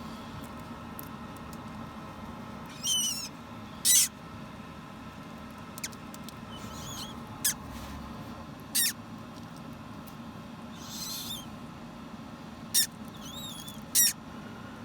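Parrot chick hatching from its egg, making short, high-pitched squeaks and cheeps, about eight of them spread out, some with a wavering pitch, over a steady low hum.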